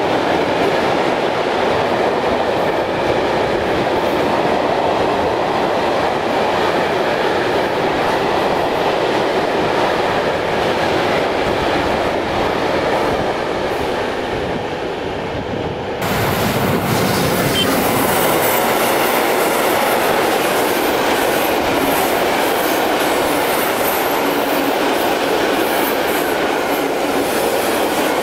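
Freight train wagons rolling along the rails, a steady rumble and clatter of wheels. About halfway through the sound cuts abruptly to another freight train of hopper wagons rolling past, brighter, with faint high-pitched wheel squeals.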